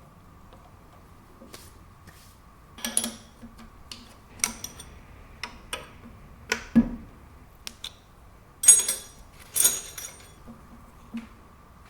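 Small metal tools and parts being handled and set down at a lathe: irregular light clicks and knocks, with two louder metallic clinks that ring briefly near the end. A faint steady high hum runs underneath.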